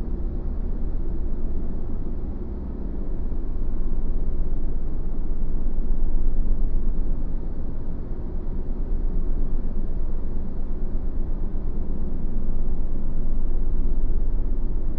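Sci-fi ambience sound design: a steady, deep, low drone with no distinct events, swelling and easing slowly every few seconds.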